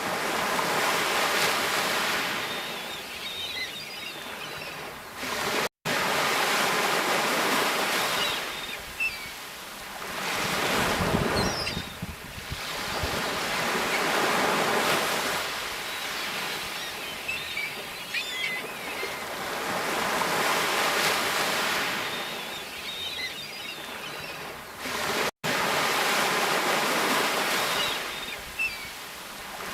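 Sea waves breaking and washing in, the hiss swelling and falling away every few seconds. The sound cuts out for an instant twice, near 6 s and near 25 s.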